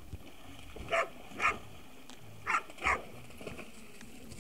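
Dog barking: four short barks in two quick pairs, the second pair about a second and a half after the first.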